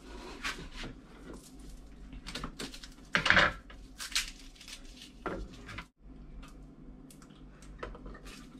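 Kitchen clatter: a knife and utensils knocking on a small chopping board and the worktop in scattered knocks, with one louder clatter about three seconds in. The sound drops out abruptly near six seconds, and a faint steady hum follows.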